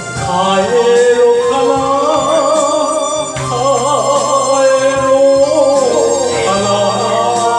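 A man sings a slow ballad into an amplified microphone, with wavering held notes, accompanied by a Yamaha electronic keyboard and an alto saxophone.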